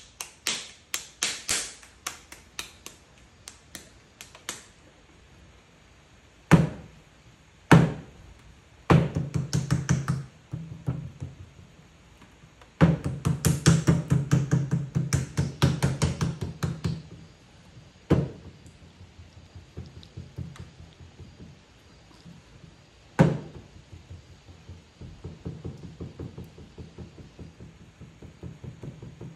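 Hands patting and slapping a lump of wet clay, then a clay coil being rolled back and forth by hand on a loose wooden board, which gives runs of quick, even knocking. A few single hard thumps on the board come between them.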